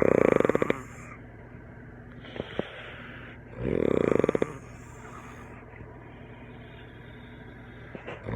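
A man snoring heavily in his sleep, loud rattling snores that sound like a tree frog croaking. One comes at the start, another about three and a half seconds in, and a third begins at the very end.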